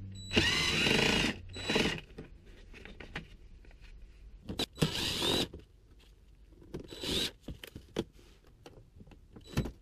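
Cordless power driver spinning in about four short bursts, its motor pitch rising and falling, as it backs out bumper bolts. Light clicks and taps of hand tools fall between the bursts.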